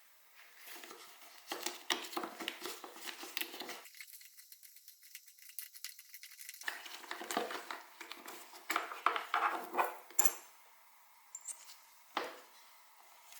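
Metal hand tools and small bike parts clinking and rattling in two busy stretches of sharp clicks, with a single knock near the end.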